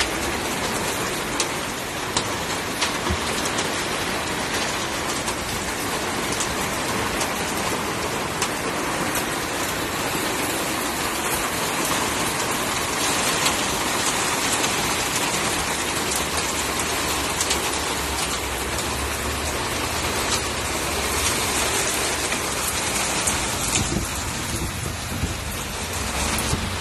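Heavy hailstorm downpour: a loud, steady hiss of rain with many scattered sharp ticks of hailstones striking hard surfaces.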